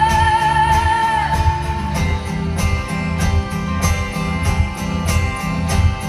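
Live band music: a long held high note with vibrato slides downward and ends about a second in, then bass, drums and guitar carry on with a steady beat.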